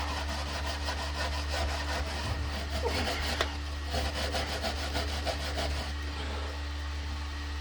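Rapid back-and-forth scrubbing strokes, about four or five a second, on a heater housing being cleaned out; the scrubbing stops about six seconds in.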